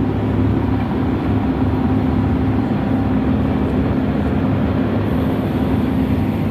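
Cargo ship's engine running steadily, a constant low hum heard on board while the ship moves off the wharf.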